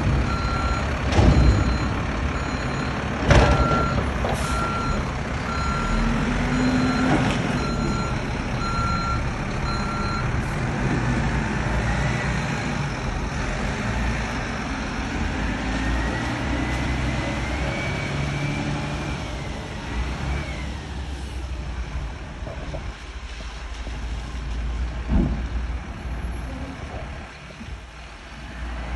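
Front-loader garbage truck's diesel engine running with its reversing beeper sounding about once a second for the first ten seconds, and two loud metal clanks in the first few seconds. After that a whine rises in pitch, and the engine fades near the end as the truck pulls away.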